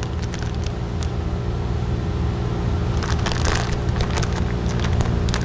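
Thin plastic bag crinkling and rustling as it is unwrapped in gloved hands, loudest about three to four seconds in, over a steady low machine hum.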